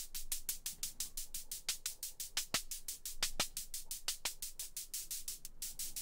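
Synthesized hi-hat from the analog hi-hat model of an After Later Audio Beehive, a Mutable Instruments Plaits clone, being triggered in a fast even pattern of short, bright ticks at about eight a second.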